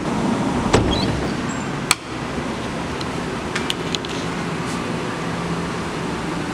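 Steady room noise with a few sharp clicks and taps, one just under a second in, one near two seconds and a small cluster near four seconds; a faint low hum comes in about halfway.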